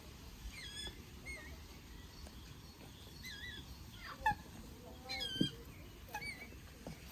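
Birds singing and calling: a string of short whistled, warbling notes over a faint background hiss, with louder calls a little past four seconds and about five and a half seconds in.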